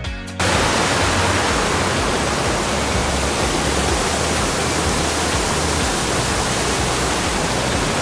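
Water rushing over a small rocky waterfall and rapids: a loud, steady hiss of white water that cuts in suddenly about half a second in, replacing music.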